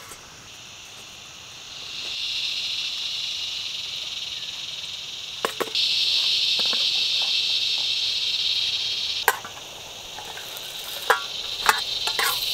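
Insect chorus: a steady high-pitched buzz that swells at about two seconds and again at about six, eases off near nine seconds and rises again near the end. A few sharp clicks stand out: the metal pan and utensil knocking on the stove stand.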